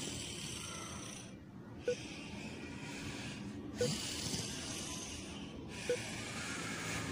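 Snoring sound effect for a sleeping cartoon character. Slow, even breaths of hissing air come about every two seconds, each followed by a short whistle.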